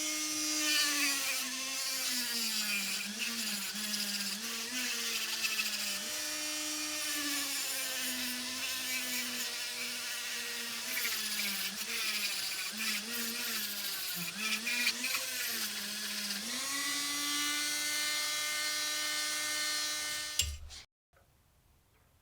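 A small handheld electric rotary tool grinding or brushing the rust off a small metal part. Its motor whine keeps dipping in pitch and recovering as it is pressed into the work, over a steady hiss of abrasion, and it switches off near the end.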